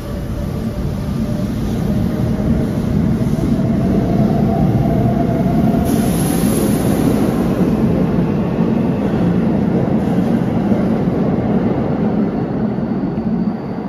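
Keikyu 600 series electric train, coupled with a 1000 series (1890 subseries) set, pulling away from the platform. The motors whine, rising in pitch as it picks up speed, over a loud, steady running rumble as the cars go past close by.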